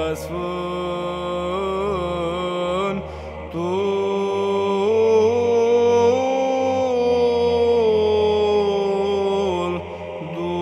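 Byzantine church chant sung in Romanian: a voice holds and ornaments long drawn-out notes over a steady low drone (the ison). The line breaks briefly about three and a half seconds in and again near the end.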